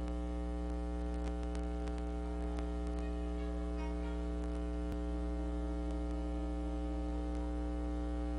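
Steady electrical mains hum: a constant low buzz with a stack of overtones, with a few faint clicks over it.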